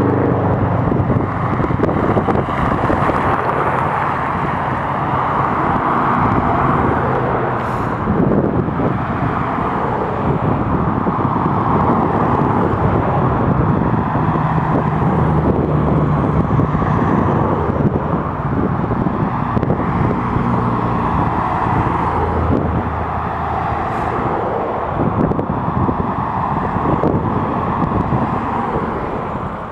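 Classic and vintage cars driving past one after another, engines running at low speed with tyre noise, the sound swelling and fading every few seconds as each car goes by.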